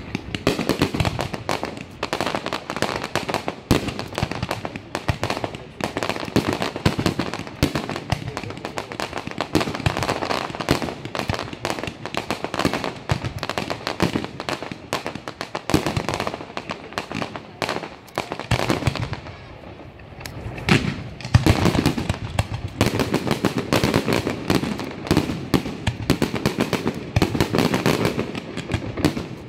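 Fireworks display: a dense barrage of aerial shells bursting, with rapid crackling bangs packed closely together and a brief lull about two-thirds of the way through.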